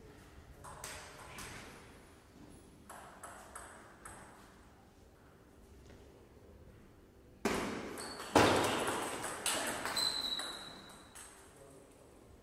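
Table tennis ball being struck and bouncing on the table during a rally, sharp clicks ringing on in a large hall. Two much louder strikes come about seven and eight seconds in, followed by a flurry of quick hits.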